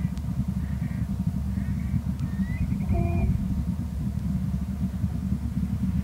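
Steady low outdoor rumble, with a few faint short chirps and a brief pitched tone about three seconds in.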